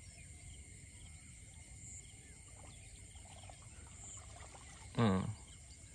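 Faint trickle of water running off a cast net as it is hauled up out of the water by its rope, over a steady thin insect buzz. About five seconds in, a man makes a brief vocal sound, the loudest thing heard.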